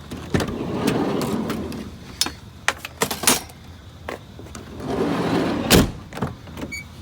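Scrap items being handled: two stretches of scraping and rustling with several sharp knocks and clinks, the loudest knock about six seconds in.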